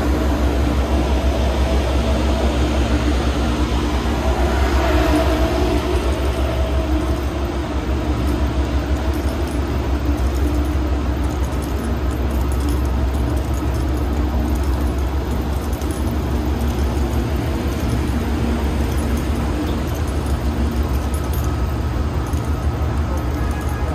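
Amtrak P42 diesel locomotives idling: a steady low rumble and hum with a few constant tones over it.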